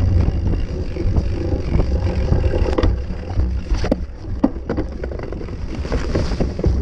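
Off-road bike ridden fast along a rough dirt trail, heard from a camera mounted on it: a steady rumble of wind buffeting and ground noise, with sharp knocks and rattles as it hits bumps, the loudest about three to four and a half seconds in.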